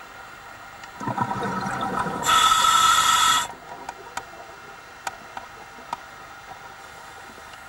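One breath through a scuba diver's regulator, heard underwater: about a second of bubbling rush, then a louder hiss of inhaled air through the demand valve that cuts off sharply. A few faint clicks follow, over a steady faint hum.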